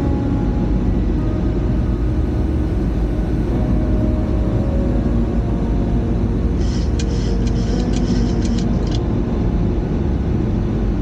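Steady cockpit noise of a Boeing 737 on final approach with the landing gear down: airflow and engine noise, heavy in the low end. About seven seconds in there is a short run of rapid ticks lasting about two seconds.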